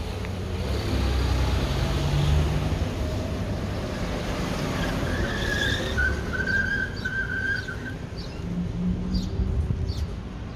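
Car traffic passing in a town street: a steady engine and tyre rumble that swells a second or two in, with a thin high squeal for a few seconds past the middle.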